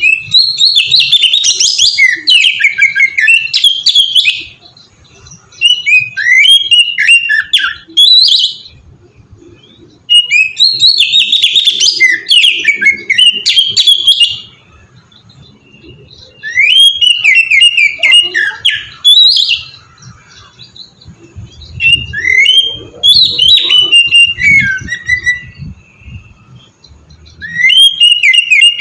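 Oriental magpie-robin (kacer) singing loud, varied phrases of rapid whistles and trills. Each burst of song lasts three to four seconds, with short pauses of one to two seconds between them.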